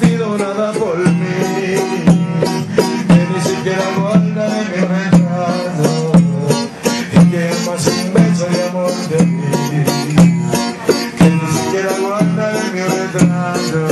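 Live acoustic band music: plucked and strummed string instruments with percussion keeping a steady beat.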